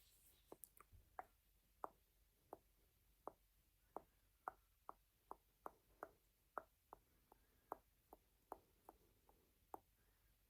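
Faint, short clicks at an uneven pace of about two or three a second, over a soft hiss.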